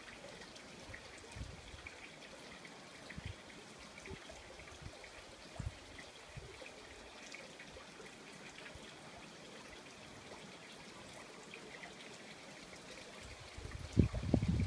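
Wind buffeting the microphone in scattered low thumps over a steady outdoor hiss, with a stronger gust about fourteen seconds in.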